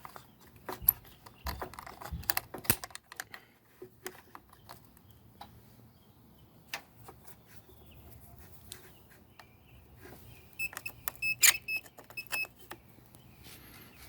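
Metal clicks and rattles as a handheld battery tester's clamps are handled and clipped onto the battery terminals, then about ten seconds in a run of short electronic beeps with clicks as the tester starts up.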